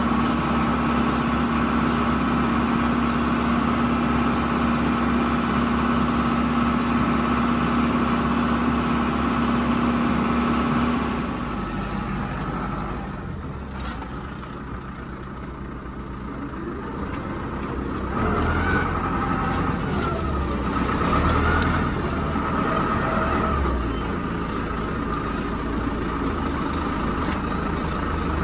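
Tractor engine running steadily as it drives. About a third of the way through the engine sound drops away, then it swells back with the pitch rising and falling a few times before settling into a steady run again.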